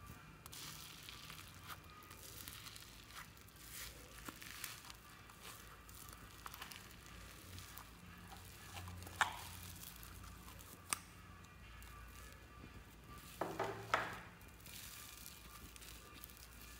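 Pink floam, slime packed with tiny foam beads, crackling and crinkling as hands pull it from a cup and squeeze and stretch it, with a few louder crackles along the way.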